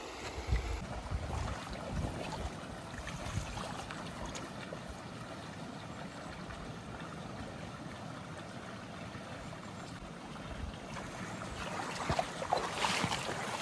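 Shallow mountain stream running over rocks, a steady rushing. A run of sharper scuffs and knocks rises over it near the end.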